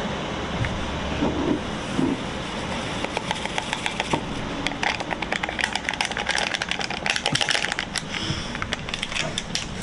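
Paper tea stick sachet crinkling and rustling as it is emptied into a ceramic mug, many fine crackles that grow densest past the middle.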